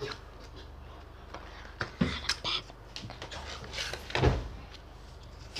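Handling noise from trading cards and their packaging on a tabletop: a few sharp taps and a short rustle about two seconds in, then a heavier thump a little after four seconds.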